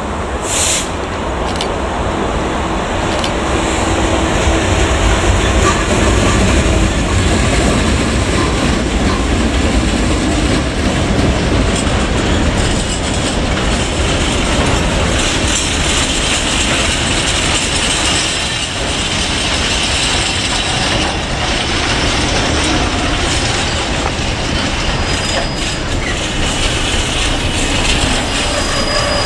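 Container freight train passing close by on the rails. The locomotive's low rumble builds over the first few seconds, then the container wagons' wheels clatter and rumble over the track. A thin, steady wheel squeal comes in near the end.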